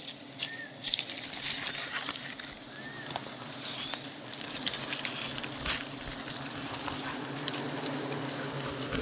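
Honeybees buzzing steadily, with many small clicks, crackles and rustles of close handling over the hum.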